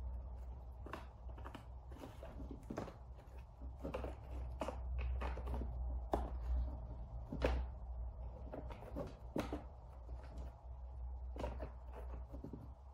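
Scattered light taps and scuffs, about fifteen irregular knocks, as a cat paws and noses at a toy snake lying on a cardboard scratcher, over a steady low hum.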